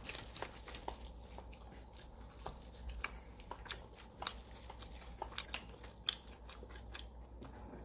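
Soft, irregular crunching and chewing of fried chicken, a scatter of small crisp clicks.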